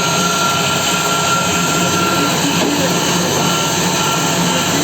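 CNC machine running steadily, a continuous machining noise with a thin high whine over a low hum.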